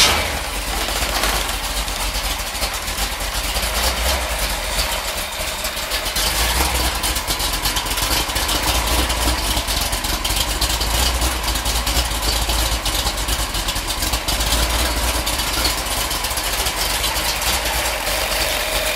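Freshly rebuilt Ford 428 FE big-block V8 running steadily just after catching on its first start-up. It settles from the start-up flare within the first moment and runs on cold, in an even rumble.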